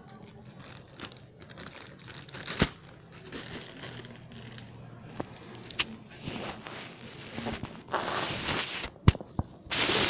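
Parcel packaging being handled and opened: plastic crinkling and rustling, with a few sharp clicks and two louder ripping stretches near the end as the wrapping is torn.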